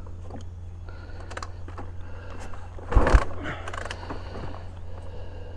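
Kick-start attempt on a Honda XR600R single-cylinder engine: one hard kick about three seconds in, the engine turning over with a couple of low thumps but not catching, amid small mechanical clicks from the kick lever and bike.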